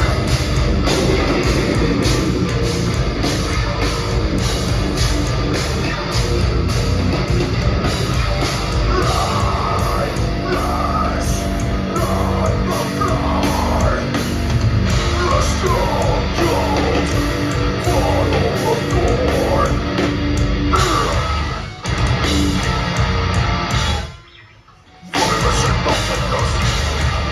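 Deathcore band playing live: heavily distorted guitars, bass and drums with harsh screamed vocals. Near the end the whole band stops dead for about a second, then crashes back in.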